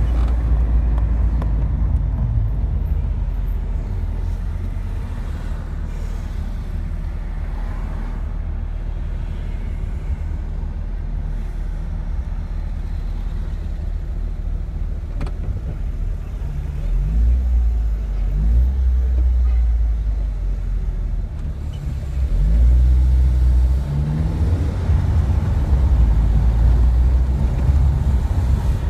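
Car engine running with road and tyre rumble, heard from inside the cabin while driving. The engine pitch rises and the level goes up twice in the second half as the car accelerates.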